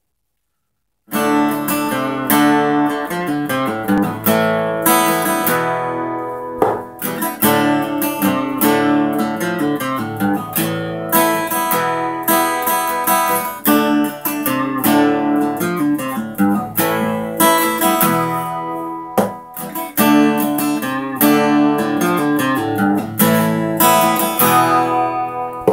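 Solo acoustic guitar, strummed chords forming a song's instrumental intro before the vocals come in; it starts about a second in.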